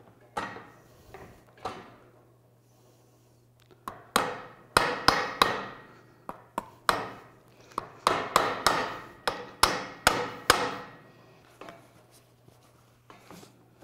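A hammer striking the steel retaining tabs of a ball-and-trunnion U-joint cup, bending them over onto the drive shaft. Each sharp metallic hit rings briefly. A few light taps come first, then a run of about fifteen harder blows at roughly two a second, then a few faint taps near the end.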